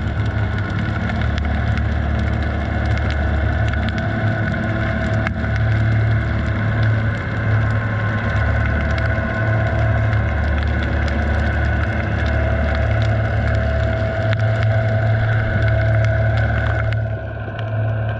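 Boat motors heard underwater through a GoPro's waterproof housing: a steady low hum with a few held engine tones above it, and faint scattered clicks.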